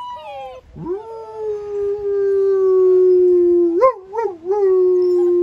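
Black German Shepherd puppy howling. One howl trails off downward, then a new howl slides up and holds one long, slowly falling note, wavering into a few short yelps about four seconds in before carrying on.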